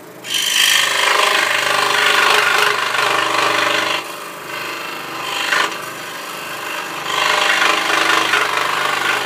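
Record Power SS16V variable-speed scroll saw cutting through wood with a pinless blade: a rasping cut over the steady hum of the motor. The cut is loud for about four seconds, eases for a few seconds, then grows loud again from about seven seconds in and stops right at the end.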